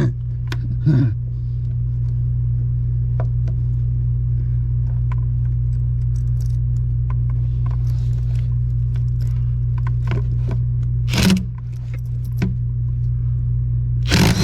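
Light metal clinks and scrapes of a wrench working a steering-rack mounting bolt loose, with two louder clatters, one about eleven seconds in and one at the end, over a steady low hum.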